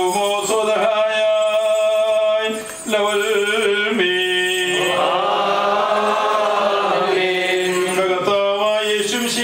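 Several men's voices chanting an Orthodox liturgical hymn in long held notes. There are short breaks between phrases, and a fuller stretch of voices in the middle.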